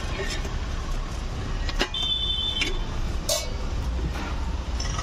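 Steady road traffic rumble, with a brief high beep, like a vehicle horn toot, about two seconds in and a few sharp clicks.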